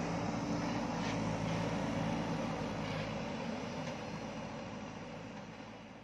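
JCB 3DX backhoe loader's diesel engine running steadily with a low hum while the backhoe arm works, then fading away over the last few seconds.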